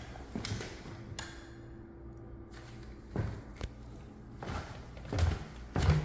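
Footsteps going down a wooden staircase: a string of irregular dull thuds as feet land on the treads, the heaviest near the end.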